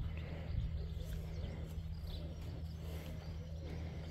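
Farmyard ambience: a steady low hum with faint bird chirps over it.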